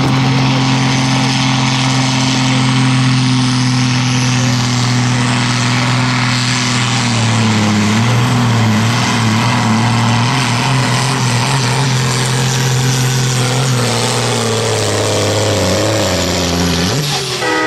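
Super Sport class pulling tractor's diesel engine running flat out under load as it drags the weight-transfer sled, a steady loud note. The revs waver about eight seconds in, and the engine falls away sharply near the end as the pull finishes.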